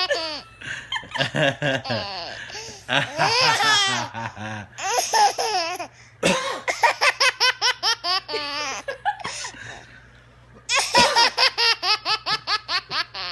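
Baby belly laughing hard in repeated bouts, each a fast run of giggle pulses, with a short lull near the end before one last bout.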